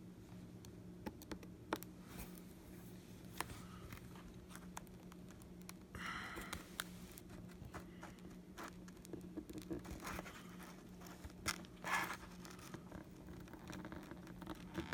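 Pry tool scratching and scraping along the glued edge of an iPad mini's cracked glass screen, with scattered small clicks and ticks as the glass and adhesive give. Short scraping spells come about 6 s and 12 s in, over a faint steady low hum.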